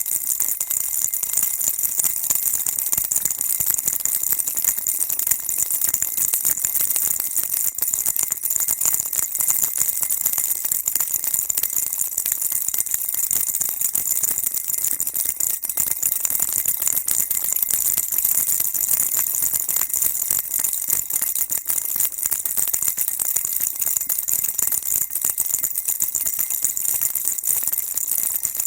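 A baby rattle shaken continuously, giving a dense, even, high-pitched rattling without pauses.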